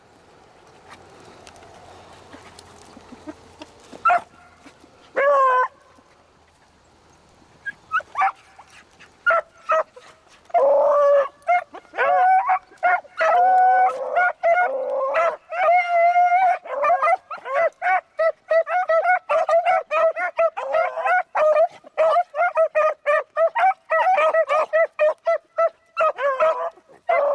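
Pack of beagles baying as they run a rabbit's scent trail: a few single yelps in the first seconds, then from about ten seconds in, several hounds giving tongue almost without pause, their calls overlapping.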